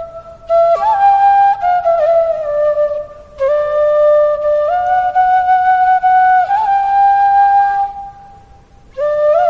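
Background music: a slow melody of long held notes, with a few short pauses.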